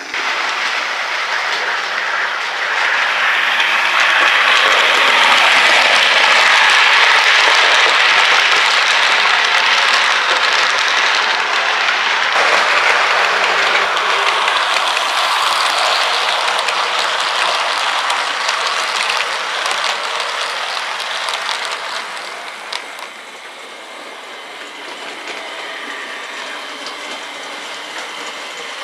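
OO gauge model train running along the track, its wheels rattling on the rails. It swells over the first few seconds, stays loud for a while, then drops away fairly suddenly about two-thirds of the way through to a lower rumble.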